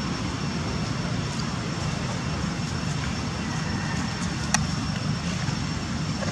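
Steady low outdoor rumble with a faint high steady tone over it, and one sharp click about four and a half seconds in.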